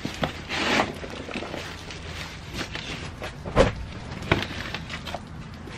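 Gloved hands rummaging in a cardboard box, pulling out cloth: rustling and a few knocks against the cardboard, with one louder thump about three and a half seconds in.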